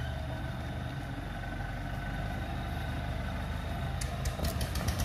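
Scania diesel engine of a log-hauling tractor running steadily. About four seconds in, a rapid rattling clatter starts and the sound grows louder.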